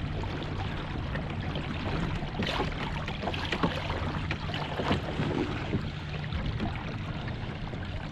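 Electric trolling motor on a kayak running with a steady low hum, with water splashing against the hull and wind on the microphone.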